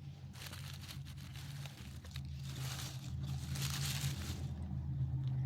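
A car's engine running as a steady low hum that grows louder as the car approaches, with two spells of crinkly rustling close by.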